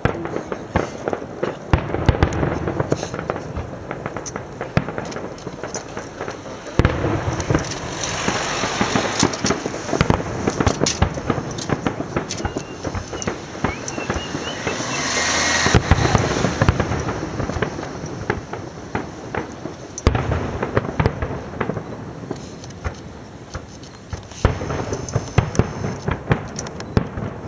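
Fireworks display: a dense, continuous barrage of bangs, pops and crackling shells, building to its loudest stretch about halfway through.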